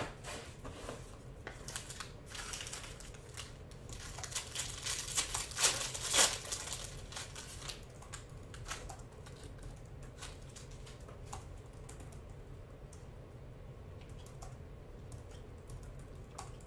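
A foil trading-card pack being torn open and its wrapper crinkled, with a cluster of louder crinkles and rips about four to six seconds in. Light clicks and ticks of cards being handled follow.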